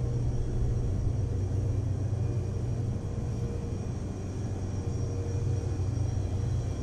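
A steady low rumbling hum with faint steady whining tones above it, unchanging throughout.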